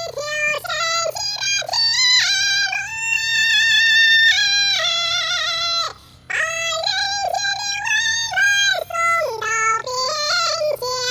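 Pet bird singing a tune in a voice-like tone, holding notes that step up and down. It pauses briefly about six seconds in and ends on a wavering note.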